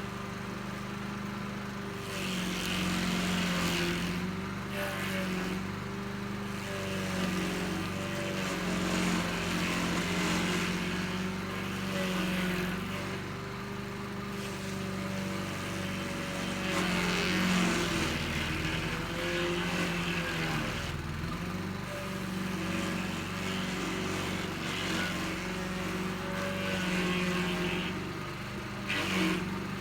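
Stump grinder's engine running steadily while its cutting wheel grinds into a stump. The gritty grinding noise swells and fades every few seconds over the steady engine note.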